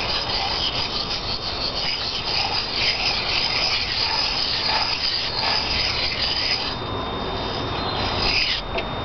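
A large steel knife blade being rubbed in small circles on the coarse side of a hand-held sharpening stone: a gritty scraping that swells and ebbs with each circle, easing off about seven seconds in and stopping shortly before the end.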